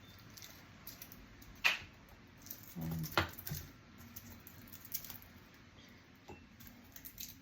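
Faint rustling and small scattered clicks of fresh garlic cloves being handled, peeled and set down, with a louder knock about three seconds in.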